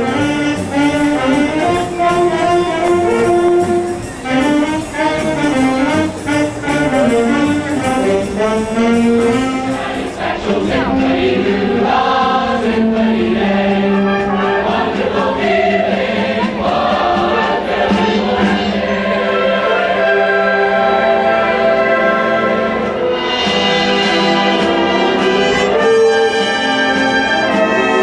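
Live band music with brass, trumpets and trombones, playing melody and chords, with a steady high ticking beat through roughly the first ten seconds.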